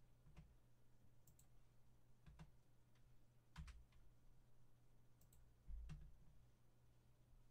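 Faint clicks of a computer mouse, about seven spread unevenly, some in quick pairs, over a low steady hum.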